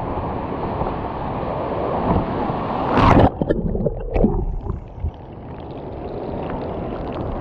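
Wind buffeting and rushing surf on a GoPro mounted on the nose of a paddleboard, with a loud splash about three seconds in as whitewater breaks over the board and camera, then broken splashing that settles into quieter rushing water.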